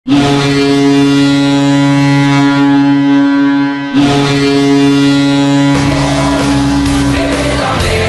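Ice hockey arena goal horn giving two long, steady blasts, the first about four seconds long and the second following right after it. About six seconds in, a rock goal song with a steady beat comes in over the horn.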